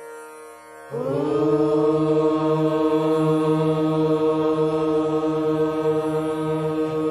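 A group of voices chanting in unison on one long, steady held note, coming in about a second in over a soft instrumental drone.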